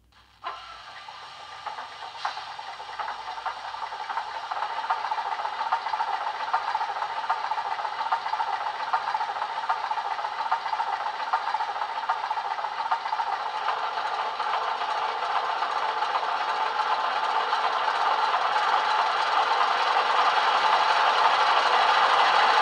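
A DCC sound decoder in a model Class 47 diesel locomotive plays the engine's cold start through the model's small speaker. A click about half a second in starts the engine sound, which runs steadily and grows gradually louder.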